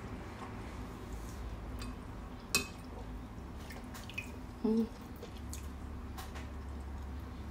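Close-miked eating sounds of a person picking at and eating bony fish: small wet mouth clicks and smacks, one sharp click about two and a half seconds in, and a short low hum a little before five seconds.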